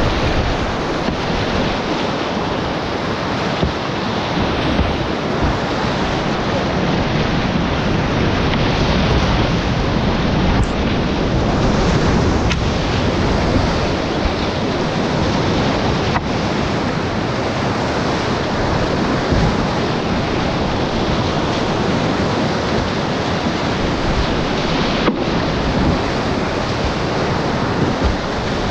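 Whitewater rapids rushing loudly and steadily around a kayak, heard close up from the paddler's own camera, with wind buffeting the microphone.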